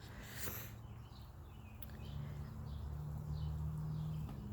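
Faint birds chirping in short repeated calls, over a steady low hum that swells a little from about halfway through.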